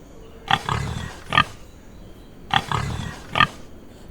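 Domestic pig calls: a short sharp call, a run of low grunts, then another sharp call. The same pattern is heard twice, about two seconds apart.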